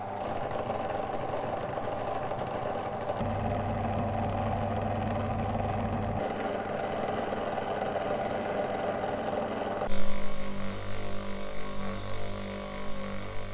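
Electric power tool running steadily with a low hum. About ten seconds in the sound gets louder and uneven, the hum pulsing on and off.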